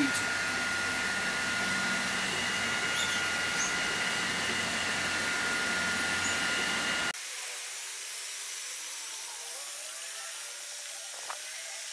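Makita DHG181 18V cordless heat gun blowing at top speed and top heat: a steady rush of air with a high fan whine, and low wind rumble on the microphone. About seven seconds in the sound cuts off abruptly, leaving a thinner, quieter hiss.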